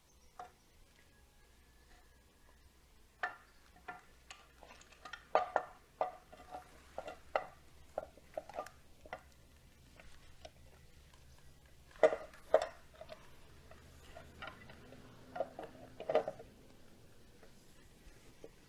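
Irregular light metallic clicks and clinks of the Honda Grom's clutch cover and its bolts being handled and fitted against the engine case, the two sharpest knocks about twelve seconds in.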